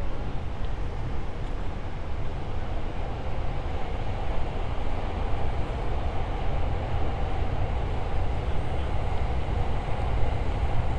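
Steady low rumble of passing city traffic, with a mid-pitched band that swells from about three seconds in and eases near the end.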